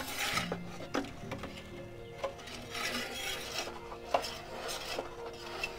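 Metal turning peel scraping and clinking against the pizza stone as a pizza is turned inside a pellet-fired pizza oven. Short rasping scrapes with a few light knocks.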